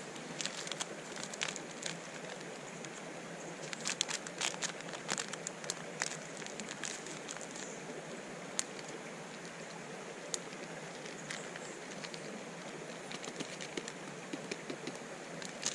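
Small wood fire in a twig stove crackling, with sharp pops scattered irregularly, densest in the first half, over the steady rush of a flowing creek.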